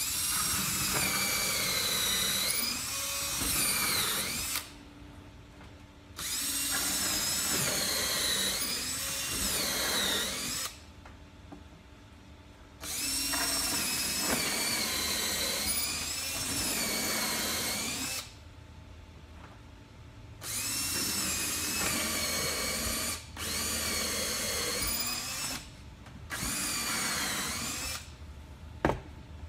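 Cordless drill boring pilot holes for Confirmat screws with a stepped countersink bit, running in about six bursts of a few seconds each with short pauses between. The motor's pitch sags and rises as the bit cuts. A single sharp click comes near the end.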